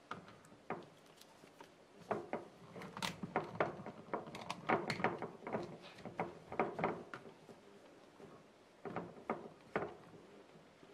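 Handling noises: a cotton gauze cloth rustling as it is wrapped over a glass and tied down with a rubber band, with scattered soft clicks and knocks. A couple of louder knocks come near the end.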